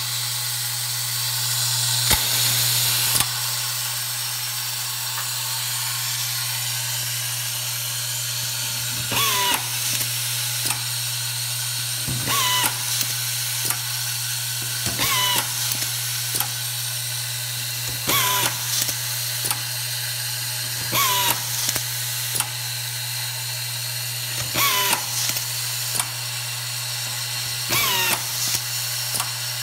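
Vibratory bowl screw feeder humming steadily under a constant hiss of air, while its pistol-grip automatic screwdriver drives #8 flat-head screws into predrilled holes to a preset depth. About every three seconds, seven times from about nine seconds in, there is a short whirr of the driver with clicks as each screw is fed down the tube and seated.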